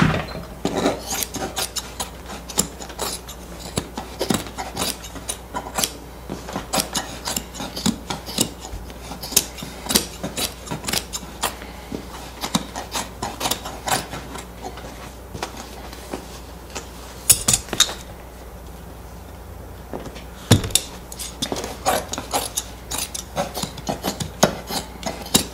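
Fabric shears snipping through upholstery fabric, trimming the excess close to the staples: a long run of short, crisp cuts a few per second, with a brief pause about three quarters through.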